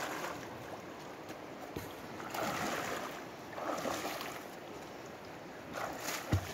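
Legs wading through shallow river water, splashing with each stride, over the steady rush of the river, with a dull thump near the end.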